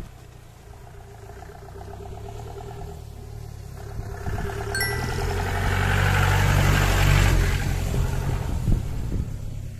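An off-road jeep's engine running as it drives up a dirt track and passes close by, the engine noise swelling to its loudest a little past the middle and then easing off. A short electronic ding sounds about five seconds in.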